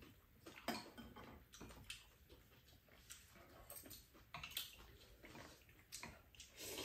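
Soft eating sounds of ramen: metal chopsticks clicking against bowls and noodles being slurped and chewed, heard as scattered short clicks and brief slurps.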